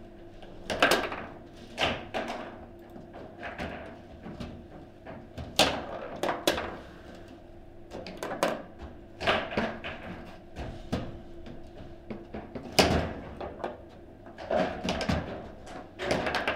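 Table football in play: a dozen or so sharp, irregular clacks and knocks as the ball is struck by the plastic figures on the rods and bounces off the table's walls.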